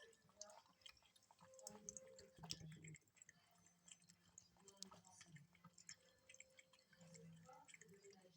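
Faint, irregular small clicks and splashes of a cat lapping water from a running tap.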